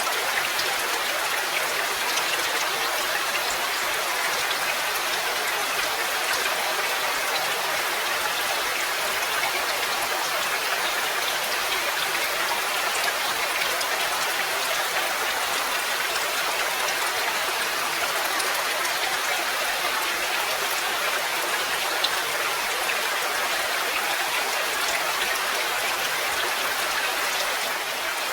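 Steady rain: an even hiss of rainfall with many small drop ticks scattered through it.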